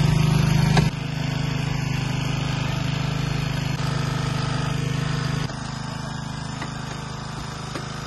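Small petrol engine of a hydraulic rescue-tool power unit running steadily, its level dropping abruptly about a second in and again about five and a half seconds in.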